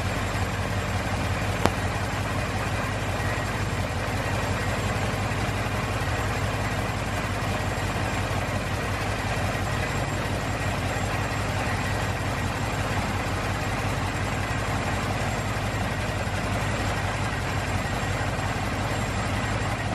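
Stearman biplane's radial engine idling steadily, heard from the open cockpit, with a single brief click about two seconds in.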